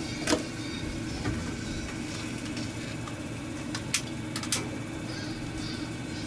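A trailer's gas stove being lit, its burner igniter clicking sharply five times at uneven intervals before the burner catches. A steady low hum runs underneath.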